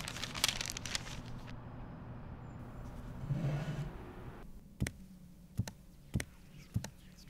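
Footsteps on a hard floor: about five sharp steps, roughly one every two-thirds of a second, starting a little past halfway through. Before them, a rustling, whispery noise.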